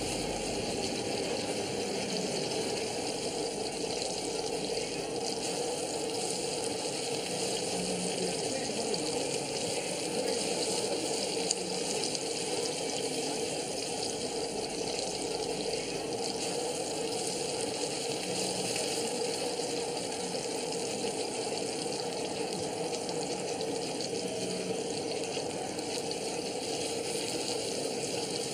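Handheld gas blowtorch hissing steadily as it flames a pork-belly roll on a flat griddle, with the meat sizzling underneath.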